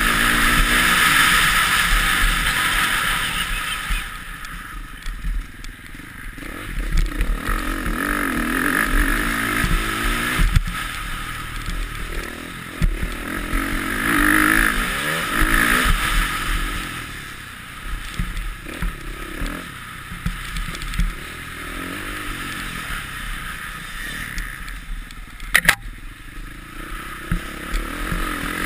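Motocross bike engine under race throttle, revving up and dropping back again and again as the rider accelerates and backs off, heard close from the rider's own bike. A single sharp knock stands out near the end.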